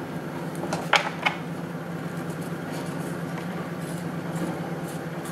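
Two sharp clicks about a second in, a quarter-second apart, as a 3D-printer push rod and its plastic Traxxas rod end are handled, with a few fainter ticks later over a steady low hum.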